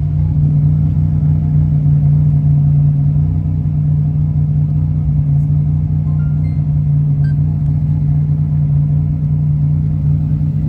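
Buick Grand National's V6 engine idling steadily.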